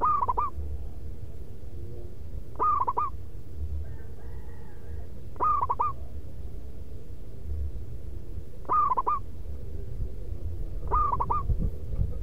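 Zebra dove (perkutut) cooing: a short phrase of about three quick notes, repeated five times at intervals of two to three seconds, over a steady low rumble.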